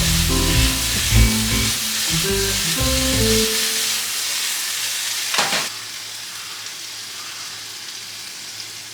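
Food stir-frying in a pan with a steady sizzle, over background music for the first few seconds. About five and a half seconds in there is a single knock, after which the sizzle is quieter.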